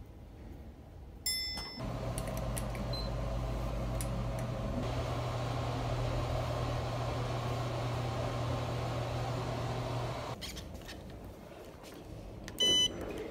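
An elevator chimes about a second in. Then the car runs with a steady hum and low drone until it stops about ten seconds in. Near the end an ID card reader gives a short, loud electronic beep.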